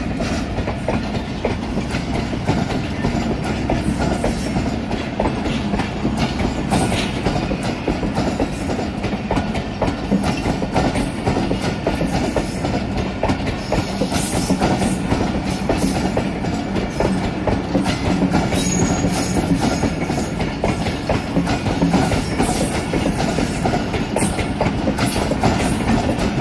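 Passenger train coaches rolling past at close range, their steel wheels clattering steadily over the rail joints in a continuous clickety-clack.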